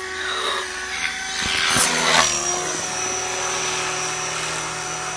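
KDS 550 radio-controlled electric helicopter in flight: main rotor whirring under a steady high motor whine, swelling louder about two seconds in, then holding steady.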